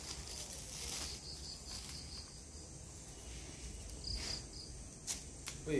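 Insects chirping in a steady pulsing trill. About four seconds in comes a short rustle, then two sharp clicks about half a second apart as the small companion blade of a kukri slices through a hand-held plastic bag.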